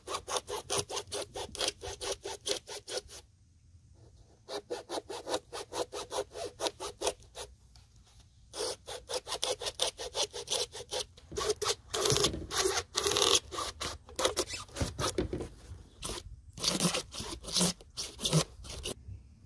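Hacksaw cutting through a black plastic kayak bulkhead foot block, quick back-and-forth strokes at about four to five a second, stopping briefly twice.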